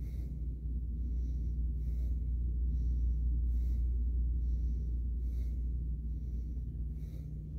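A man breathing hard in and out in a steady rhythm, about one breath every two seconds, from the exertion of dumbbell curls, over a steady low hum.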